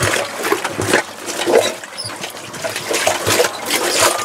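Wet chicken-manure slurry sloshing and churning as a hand-cranked steel paddle mixer turns it in a concrete biogas inlet pit, with irregular knocks from the mixer. The droppings are being mixed with water into a slurry that will flow on to the digester.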